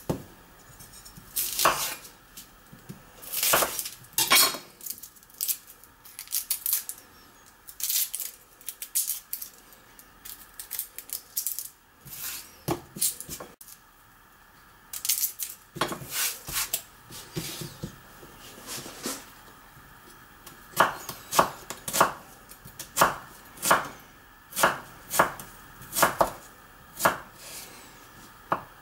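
Knife chopping on a chopping board, in irregular cuts at first and then a steadier run of strokes, a little more than one a second, in the last several seconds.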